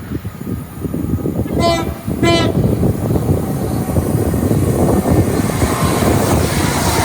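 A passing train sounds two short horn blasts on the same note in quick succession, then runs by at speed with a loud, steady rumble of wheels on rail.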